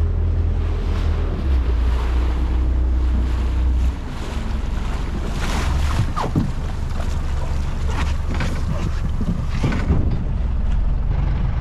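Motorboat engine running under way, with wind buffeting the microphone and water splashing off the bow. The engine's low hum drops back about four seconds in.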